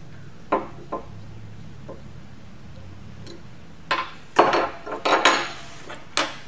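Metal Bunsen burner parts clinking and knocking as they are handled and set down on a lab bench. A few light clicks come in the first second, then a cluster of louder knocks starts about four seconds in, and one more comes near the end.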